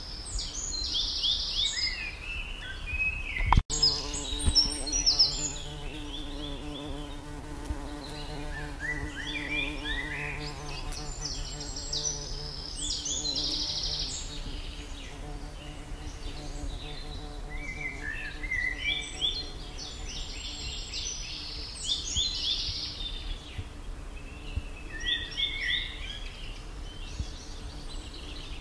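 A songbird sings outside in repeated phrases of quick, high chirps, coming back every several seconds. From about four seconds in, a steady low buzzing hum runs for roughly twelve seconds, and a brief sharp knock just before it is the loudest moment.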